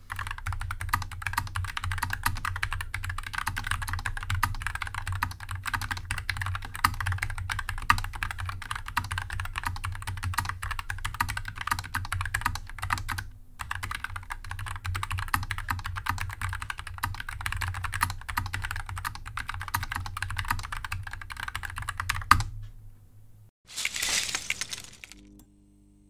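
Typing on a Wombat Coleus low-profile keyboard with Gateron low-profile brown tactile switches, in an aluminium-topped plastic case. A fast, steady stream of keystrokes runs with a short pause about halfway and stops about 22 seconds in. A brief burst of noise follows a second or two later.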